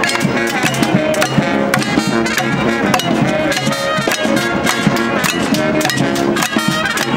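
Marching brass band playing as it walks: saxophones, brass and a sousaphone playing a tune together over a steady drumbeat.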